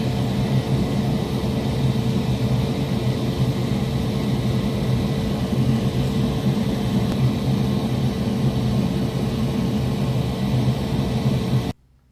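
Steady whir of a small electric motor or fan with a low hum, cutting off suddenly near the end.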